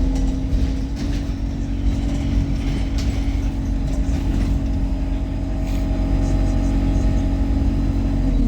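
London bus engine and drivetrain running, heard from inside the passenger cabin: a steady low rumble with a constant droning hum and a few light rattles.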